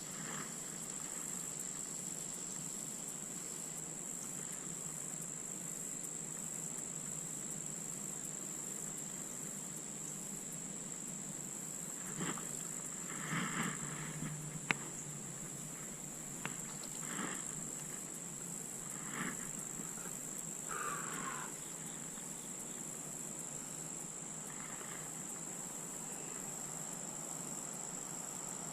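Insects trilling in one steady high-pitched drone. About halfway through there are a few brief clicks and rustles, and a short falling sound.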